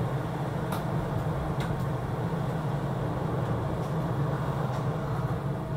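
Shonan Monorail 5000-series suspended monorail train creeping slowly into its terminal platform, a steady low hum from its motors and running gear heard from the front of the car, with a couple of faint clicks in the first two seconds.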